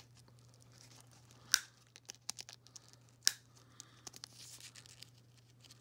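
Faint rustling and handling of a paper care tag on a small stuffed toy, with two sharp clicks about a second and a half apart.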